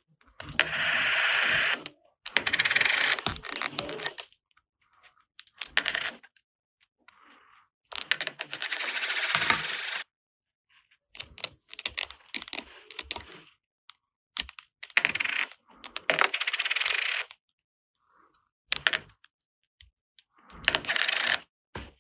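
Small plastic toy kitchen pieces being handled: a series of short rustling, clicking bursts, each a second or two long, with brief pauses between.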